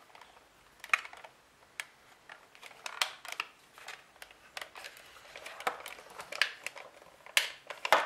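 Irregular plastic clicks and knocks from the hard shell of a Coleco Super Action Controller being handled and pried apart, with sharper snaps near the end as a front piece pops off.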